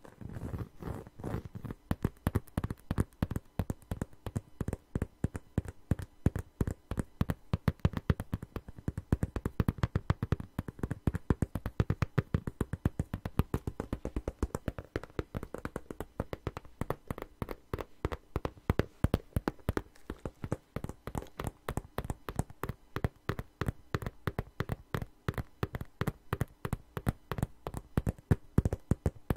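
Fast fingertip tapping on a red zip wallet close to the microphone: rapid sharp taps, many a second, running on without a pause.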